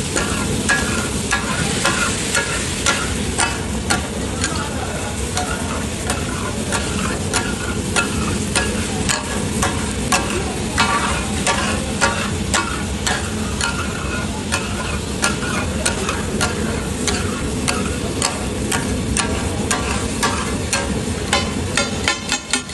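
Steel spatula blades clacking on a hot iron tawa as taka tak is chopped and stirred, over a steady loud sizzle of frying. Near the end the strikes turn into a fast, even chopping rhythm of about four or five a second.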